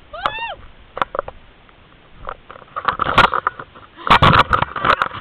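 Handling noise from a handheld camera carried through grass and brush: rustling, rubbing and knocks, loudest about four seconds in. A short high cry that rises then falls comes near the start.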